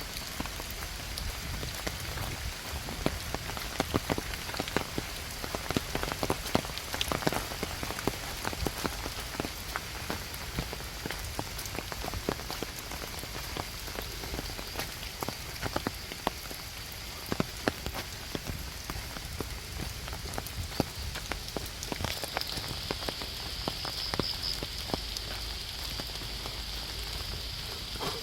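Steady rain, with many individual drops ticking sharply and irregularly close by. A high steady hiss rises in level about three-quarters of the way through.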